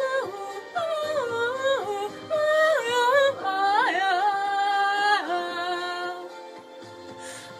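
A woman singing alone without accompaniment and without words, her melody sliding and stepping between notes, with one long held note in the middle; the singing grows softer near the end.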